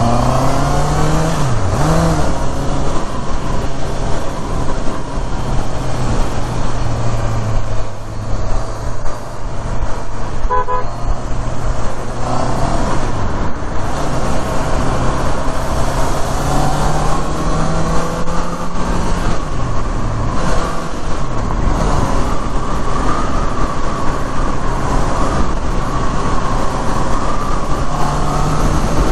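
Honda CBR650R's inline-four engine running at a steady cruise under heavy wind noise. The engine note dips briefly around two seconds and again around twenty seconds, and rises gradually in between. A short run of beeps comes about ten seconds in.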